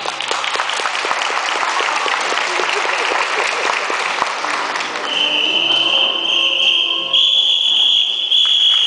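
Circus audience clapping. About five seconds in, a long high whistle tone joins, holding steady, stepping up a little in pitch a couple of seconds later, then cutting off near the end.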